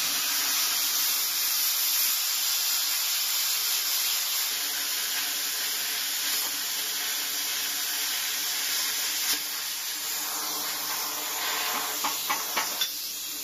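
Handheld plasma cutter cutting through a steel tube: a loud, steady hiss with a few crackles near the end, then it cuts off suddenly as the torch stops.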